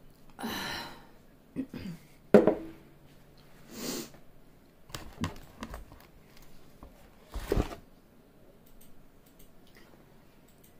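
Close-up mealtime handling sounds: a sip from a glass of cola, then several separate sharp knocks and rustles, the loudest about two seconds in, as a cheese pizza slice is lifted from its cardboard box and pulled apart.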